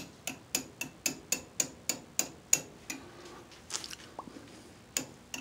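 Light, sharp clicks, about three to four a second for the first three seconds, then a few scattered ones, as a lathe slide is hand-fed toward its mark in fine steps.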